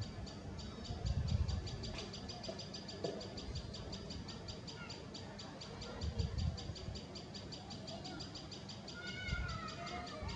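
Outdoor bird calls over a steady, rapid series of high chirps at about four or five a second, with a few gliding calls near the end and low rumbles now and then.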